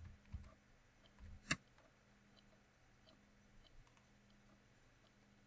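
A few faint computer keyboard keystrokes and mouse clicks, the sharpest about a second and a half in, then only scattered light ticks over a low steady hum.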